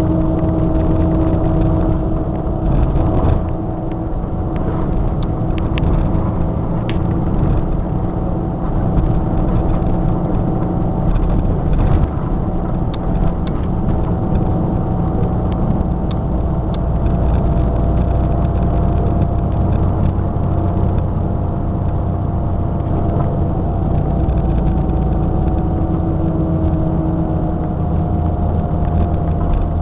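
Scania K94 IB bus's rear-mounted nine-litre five-cylinder diesel engine running at fairly steady revs, heard from inside the bus cabin, with a low rumble and a few light rattles.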